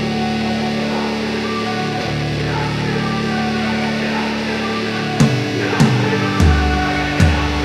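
Background music: held guitar tones, with a drum beat coming in about five seconds in.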